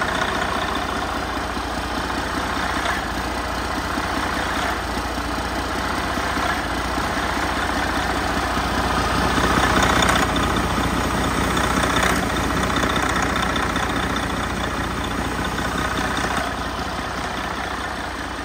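2013 Detroit Diesel DD13 12.8-litre inline-six diesel engine running steadily at idle on a test stand, with its intake rush getting louder for a few seconds about ten seconds in.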